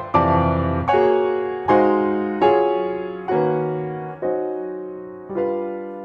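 Background piano music: slow chords, a new one struck about once a second, each left to ring and fade.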